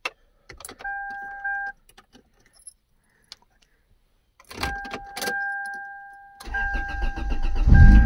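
1996 Toyota Corolla being started: the key clicks in the ignition and a steady dashboard warning buzzer sounds in short spells. About six and a half seconds in the starter cranks the four-cylinder engine, which catches and runs, loudest near the end.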